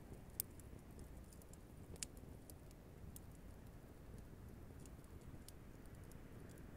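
Small wood campfire crackling faintly with scattered snaps, two sharper pops at about half a second and two seconds in.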